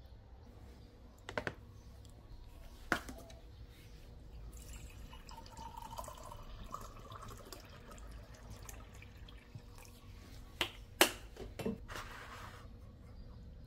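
Kitchen handling sounds: a few sharp clinks and knocks, three of them close together near the end, over a faint running hiss like water or liquid.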